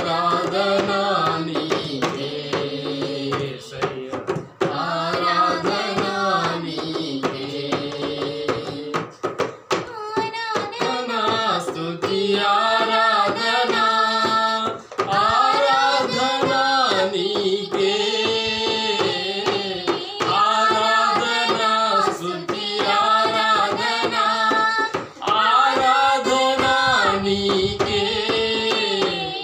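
A man singing a Telugu Christian worship song in long, held phrases with short breaths between them, over a rhythmic musical backing.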